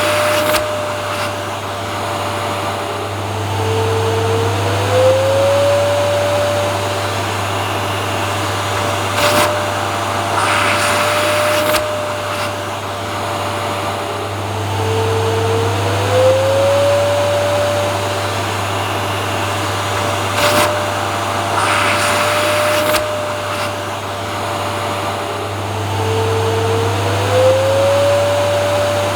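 Vacuum cleaner running steadily. Its motor whine drops in pitch and glides back up about every eleven seconds, with short bursts of hiss in between.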